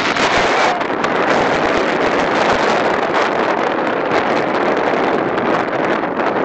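Storm-force wind blowing hard across the microphone, a loud, steady rush of noise.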